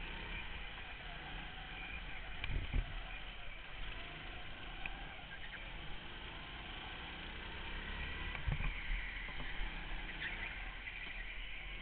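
Go-kart engine running under way as heard from the kart itself, its pitch rising and falling with the throttle, with other karts' engines around it. Two dull low thumps, about two and a half and eight and a half seconds in.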